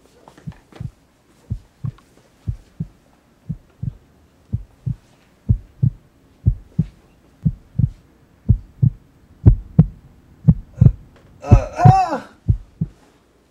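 Heartbeat sound effect: paired low thumps, lub-dub, about once a second, growing louder. Near the end comes a brief cry that rises and falls in pitch.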